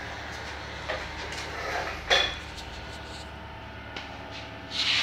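A few clinks and knocks from gear and the phone being handled, the loudest about two seconds in with a brief metallic ring, over a steady low hum.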